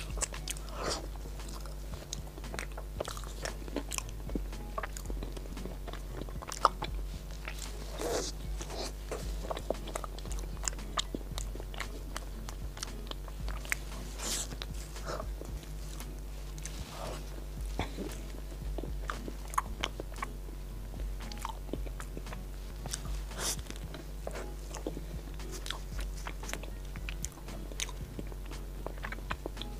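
Close-miked eating of a large chocolate-and-cream snow-skin mochi (xuemeiniang): bites and chewing with many short, wet mouth clicks throughout, over a steady low hum.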